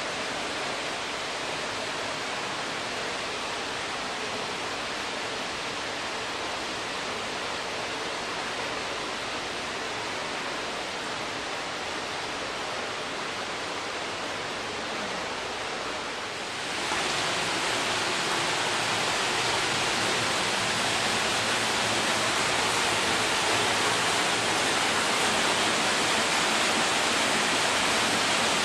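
Steady rush of running water, which gets louder a little over halfway through.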